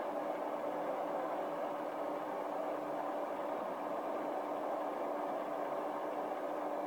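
Paper-feeding and pressing section of a flat bottom case packer line running, a steady machine hum with a constant low drone.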